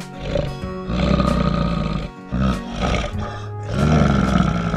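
Deep roars of a large animal in four bursts, the loudest near the end, over background music with steady held tones.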